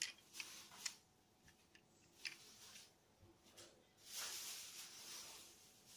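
Near silence with faint handling sounds: a few light clicks in the first couple of seconds, then a soft rustle for about two seconds near the end, as a small toy car is turned over in the hand.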